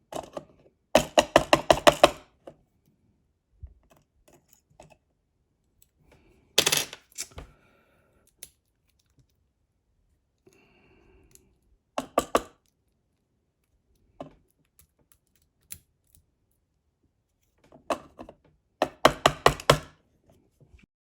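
Small metal parts of a Medeco lock being knocked and handled while it is taken apart: two quick runs of about half a dozen sharp knocks, about a second in and near the end, with a few single knocks and clicks between.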